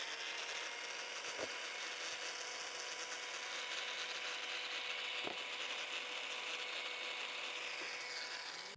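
Handheld angle grinder running at full speed with a steady whine, its disc cutting thin plywood. The sound cuts off abruptly at the end.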